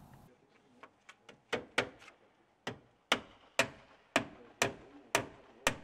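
Small hatchet hammering larch shingles onto roof battens: sharp wooden knocks, a few light taps about a second in, then heavier blows about two a second.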